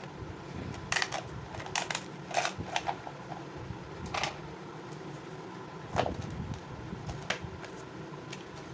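Scattered light clicks and taps of small objects being handled, about six spread over several seconds, over a faint steady hum.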